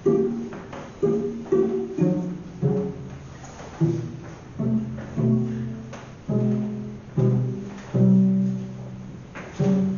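Improvised music of low plucked string notes, one to two a second, each starting sharply and ringing out before the next.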